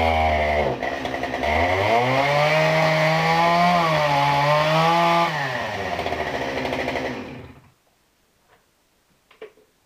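Two-stroke chainsaw fitted with an Oregon PowerSharp, run at high revs with the bar nose pressed down so the sharpening stone bears on the chain. Engine speed dips about a second in, climbs back and holds, eases down around five seconds in, and the sound cuts off suddenly a couple of seconds before the end.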